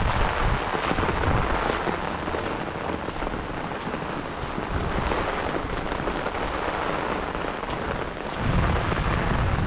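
Heavy rain falling steadily as an even hiss, with a low rumble at the start and again near the end.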